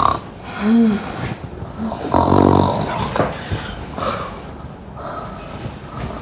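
A person snoring loudly in an exaggerated, comic way: a short whistling note that rises and falls about a second in, then long rattling snores, the loudest around two seconds in and weaker ones after.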